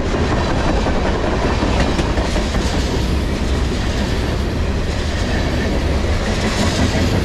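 Tank cars of a passing freight train rolling by close at hand: steel wheels on rail, a steady noise that is heaviest in the low end.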